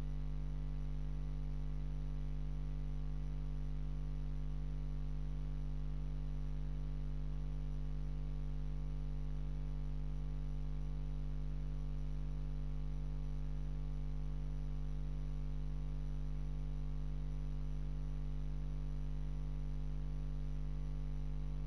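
A steady, unchanging electrical hum with a faint buzz above it, and no other sound.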